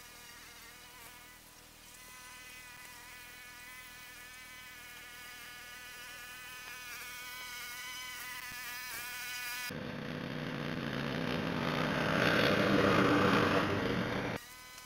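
Lawnmower engine sound sped up with the time-lapse footage, heard as a high, insect-like buzzing drone that slowly grows louder. About ten seconds in it switches abruptly to a louder, rougher noise, which cuts off again just before the end.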